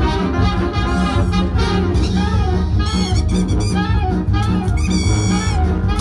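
Jazzy background music with horns over a steady, evenly pulsing bass beat.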